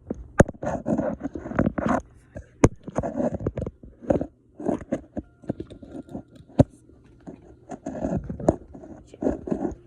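Close handling of small plastic parts: irregular scraping and crunching, broken by a few sharp clicks.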